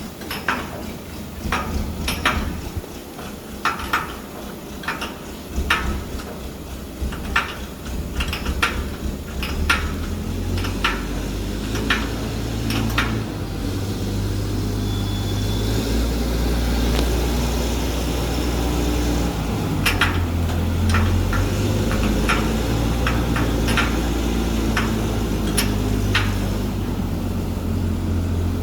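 Light metal clinks and knocks from parts and tools being handled on a machine. From about ten seconds in, a steady low machine hum builds up under them.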